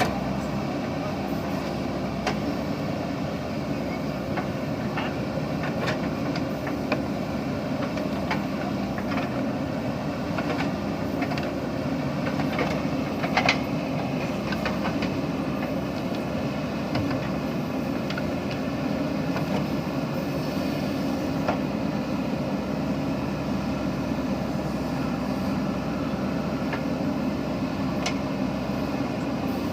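JCB backhoe loader's diesel engine running steadily, with scattered short knocks and clanks, the loudest about halfway through.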